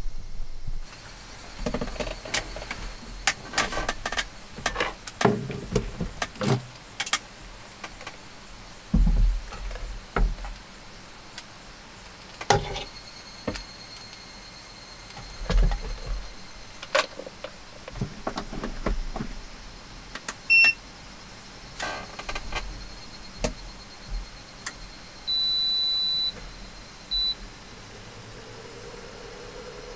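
Power cords and plugs being handled, with scattered clicks and rattles, then electronic beeps from a portable induction cooktop's touch controls: a short beep about two-thirds in and a longer steady beep followed by a brief one near the end. A low hum begins just before the end.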